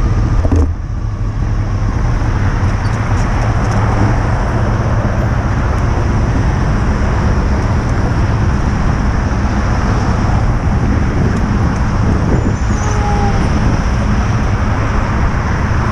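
Motorcycle riding through slow freeway traffic. The engine note drops off about half a second in, then a steady rush of wind and road noise over the camera with the engine running underneath.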